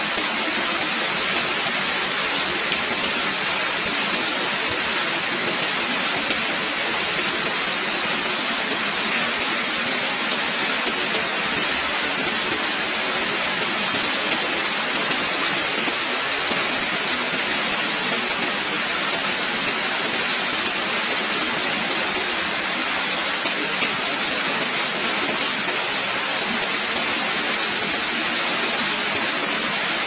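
Heavy rain falling steadily: an even, unbroken hiss with no thunder and no single sounds standing out.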